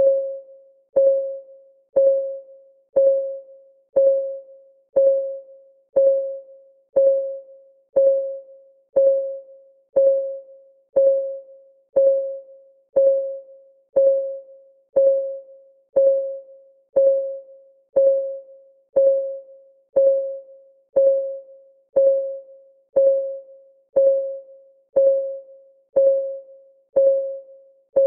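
Countdown timer's clock-tick sound effect: one short, pitched tick every second, each ringing out briefly and dying away before the next.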